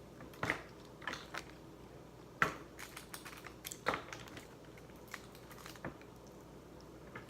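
Irregular sharp clicks and small cracks of seafood-boil food being handled and eaten at the table, about a dozen spread unevenly.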